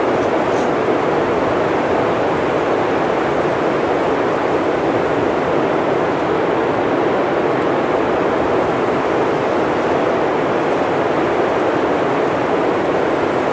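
A steady, even rushing noise, unchanging throughout, with no distinct events or pitch.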